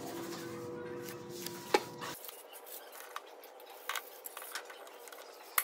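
Light clicks and taps of hand tools being handled on a workbench: a few separate knocks with quiet between them. A faint steady hum lies under the first two seconds and stops abruptly.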